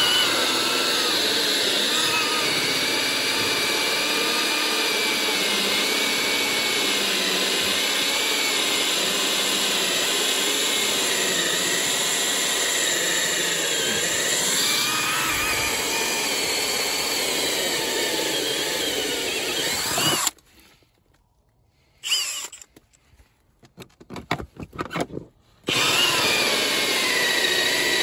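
Cordless drill turning a 1¼-inch hole saw, cutting through the house wall's wood. It runs steadily for about twenty seconds, stops, gives a few short bursts, and then runs steadily again near the end.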